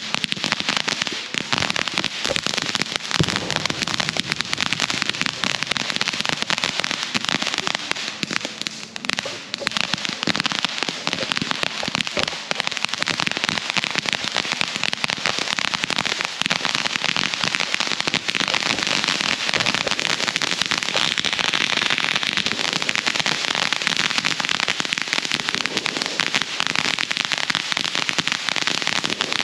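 Ground fountain firework of the crackling 'popcorn' kind, spraying sparks with a continuous dense crackle of rapid small pops, easing briefly about nine seconds in.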